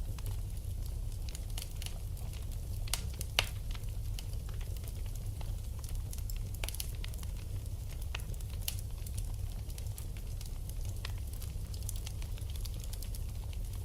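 Wood fire burning in a fireplace: irregular crackles and pops over a steady low rumble, with one louder pop about three and a half seconds in.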